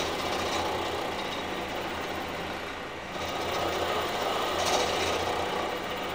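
Milling machine running with an end mill cutting into a metal arm part: a steady motor hum under the noise of the cut.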